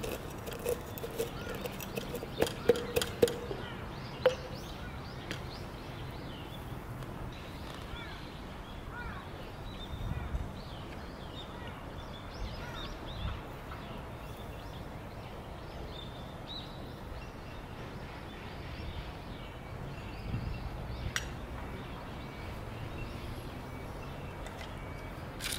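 A wooden pestle pounds whole dried spices in a glass jar, giving a run of sharp knocks and clinks over the first four seconds or so. After that comes outdoor ambience with birds chirping on and off.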